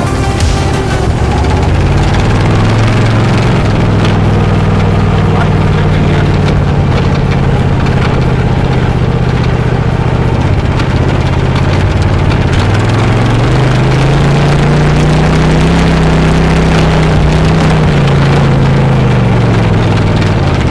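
Racing lawn mower's engine running, its pitch climbing about two seconds in, dipping around twelve seconds, then rising again and falling away near the end as the engine speed changes.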